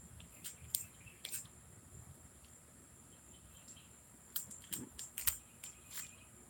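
Faint, scattered crinkles and clicks of a Reese's Big Cup candy wrapper being handled, in two short clusters, about a second in and again around four to six seconds in.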